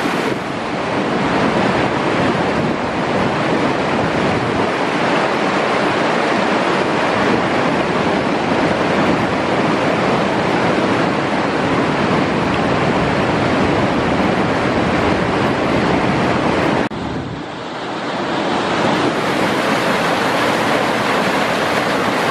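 Loud, steady rush of a fast mountain river's whitewater rapids pouring over boulders. The level dips briefly about seventeen seconds in, then builds again.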